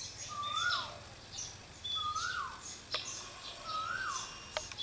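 Bird calls: one bird repeats a short whistled note that rises and then drops away sharply, three times about every second and a half to two seconds, over scattered higher chirps from other birds.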